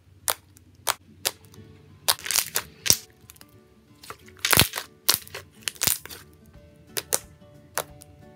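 Slime being squeezed and pressed by hand, giving sharp pops and crackles every half second or so, with denser clusters about two seconds in and again around five seconds in, over soft background music.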